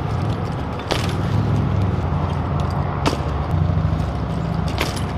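BMX bike rolling on asphalt over a steady low rumble, with three sharp clacks about two seconds apart.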